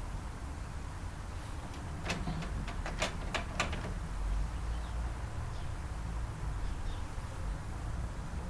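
A quick run of about six sharp clicks and knocks from a broken Panasonic microwave's parts being handled during disassembly, over a steady low hum.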